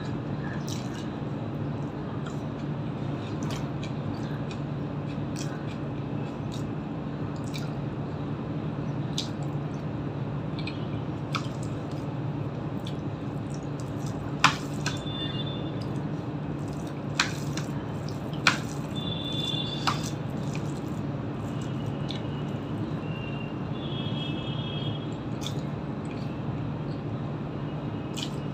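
Wet chewing and mouth sounds of eating rice and curry by hand, with squishy fingers-in-food noises and scattered sharp clicks, over a steady low hum.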